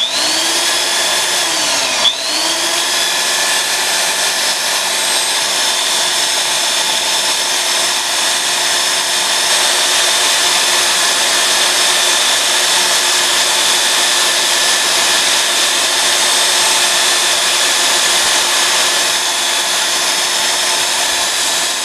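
Small electric belt sander running steadily while the cut ends of short metal pipes are smoothed against the belt. Its whine rises as the motor spins up at the start and dips briefly about two seconds in.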